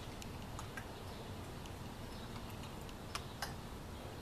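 Quiet background noise with a few faint, scattered light clicks, two of them close together a little after three seconds in.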